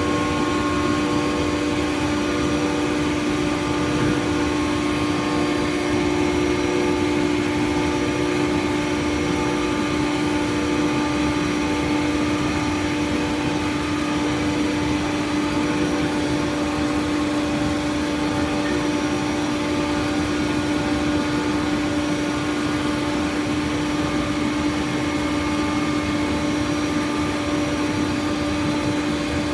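CNC milling machine running steadily, a constant whine over mechanical noise with no change in pitch or level.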